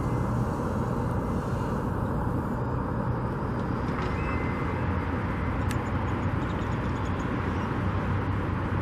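Steady outdoor road traffic noise, an even rumble without a distinct single vehicle standing out.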